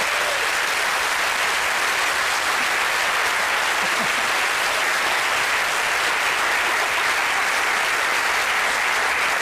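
Studio audience applauding: many hands clapping in a steady, even wash.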